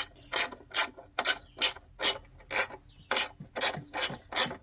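Ratchet wrench worked back and forth to back out a bolt on a lawn mower, a quick, even series of ratcheting strokes about two and a half a second.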